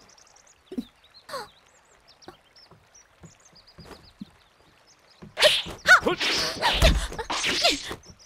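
Kung-fu fight sound effects. It opens quiet with faint bird chirps and a few soft knocks. From about five seconds in comes a dense burst of whooshes, blows and a deep thud, mixed with short shouts or grunts of effort.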